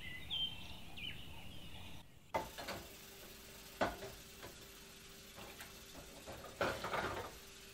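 Birds chirping outside for about two seconds. Then dishes clink and clatter in a kitchen sink as they are washed by hand, with sharp knocks about two and a half and four seconds in and a longer clatter near the end, over a faint steady hum.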